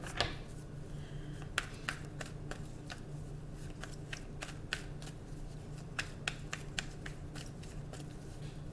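Deck of tarot cards being hand-shuffled: irregular light clicks and slaps of cards against each other, with a faint low steady hum underneath.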